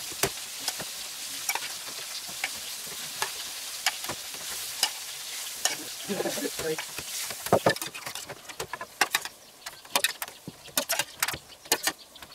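A metal spoon clinking and scraping against a stainless steel bowl and porcelain plates as sauce is spread onto burger buns: many short, irregular clicks. A steady hiss sits under the first part and drops away about eight seconds in.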